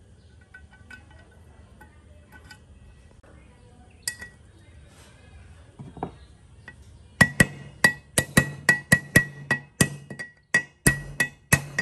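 Hammer striking a socket used as a seal driver, tapping an oil seal into the bore of a small generator engine's aluminium crankcase. A few light metal clinks as the driver is set in place, then, about seven seconds in, a fast run of sharp ringing strikes, about three to four a second.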